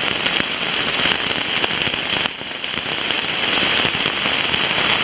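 Heavy rain beating on a tent: a dense, steady patter of many sharp individual hits, easing briefly about halfway through.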